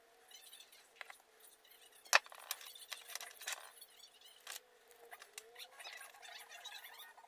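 Close handling noises of small parts on a wooden workbench: light clicks, taps and scrapes from a screwdriver, a small wooden block, a cork and a plastic bottle cap. One sharp click about two seconds in is the loudest sound.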